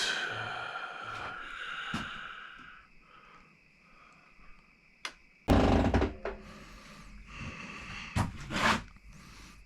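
Hand work on motorcycle hand-guard parts: a fading ring over the first few seconds, a sharp click about five seconds in, then two loud rustling, scraping bursts as parts are handled.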